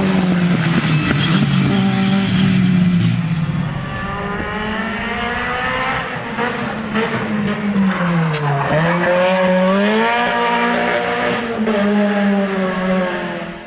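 Nissan Sunny 2.0 GTi rally car's 2.0-litre four-cylinder engine revving hard on a stage run. Its pitch drops sharply about eight and a half seconds in as it slows, then climbs again under acceleration. The sound cuts off suddenly at the end.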